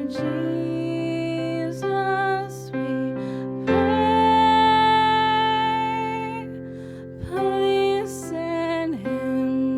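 Slow, gentle worship music with long held notes that change every second or two.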